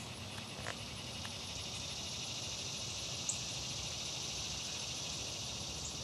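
Steady chorus of summer insects, a high buzzing drone that swells slightly after the first second or so, with a few faint clicks.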